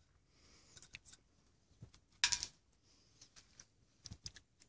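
Light metallic clicks and ticks of small unit-injector parts being handled by hand at the follower and spring while the C clip is being fitted, with the sharpest click about two seconds in.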